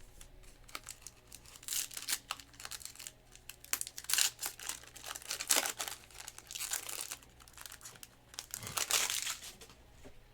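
A trading-card pack's wrapper being torn open and handled, rustling and crinkling in several bursts.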